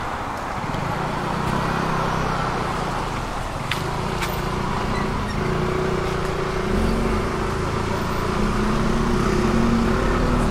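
Street traffic: a motor vehicle's engine running close by with its pitch wavering, over steady road noise, growing slightly louder toward the end.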